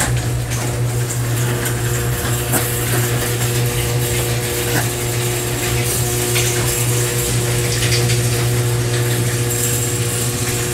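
Garage door opener running steadily as it drives the door closed, a constant mechanical hum that cuts off suddenly near the end as the door reaches the closed position.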